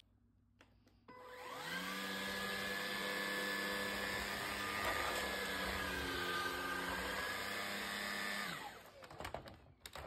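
Levoit LVAC-200 cordless stick vacuum switched on, its motor whine spinning up about a second in. It runs steadily, with a brief shift in pitch around the middle, then is switched off and winds down near the end.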